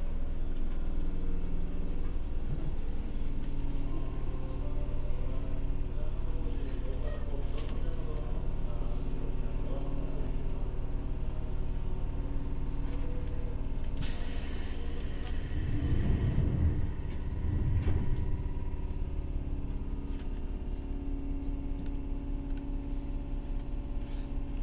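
Steady low hum inside a Seibu 301 series resistor-control electric train car. About fourteen seconds in comes a sharp burst of air hiss lasting a couple of seconds, followed by two heavy low thumps.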